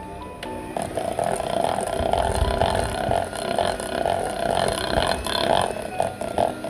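Electric hand mixer running at low speed, its twin beaters churning stiff chocolate cookie dough in a stainless steel bowl. The motor's note rises and falls unevenly as the beaters work through the dough.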